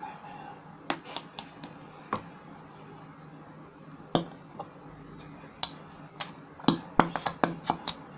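Plastic bottle of purple glitter glue squeezed upside down, giving sharp clicks and pops: a few scattered at first, then coming quickly over the last second and a half.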